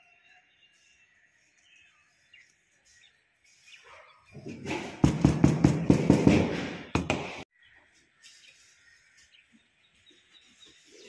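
A steel shoemaker's hammer striking a leather strip on a hard work board: a quick run of about a dozen sharp blows over some two and a half seconds, beating the leather flat.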